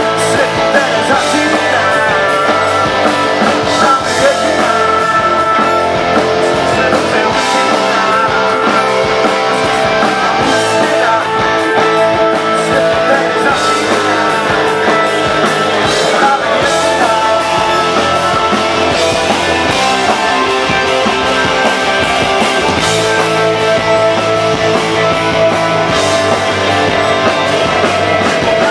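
Live rock band playing loud, with electric guitars, drums and a singer on vocals.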